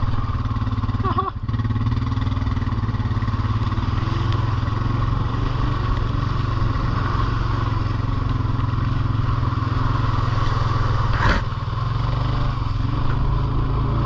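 Off-road vehicle engine running steadily under way at an even throttle, with a single short knock about eleven seconds in.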